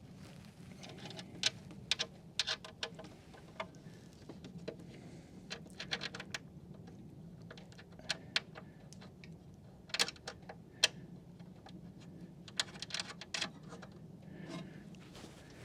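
Faint, irregular light metallic clicks and taps in small clusters: nuts, bolts and a hand tool being handled while the tour pack's mounting nuts are loosely threaded on.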